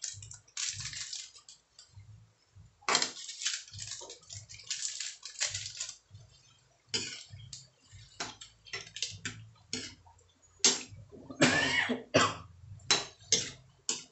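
Metal spatula stirring in a metal wok, scraping and knocking against its sides in irregular clatters.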